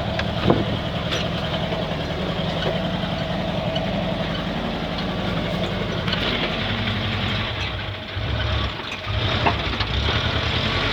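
LuAZ-969A's air-cooled V4 engine running at low speed as the little 4x4 creeps and turns over rough ground, with a few sharp knocks. The engine note dips briefly twice near the end as the load changes.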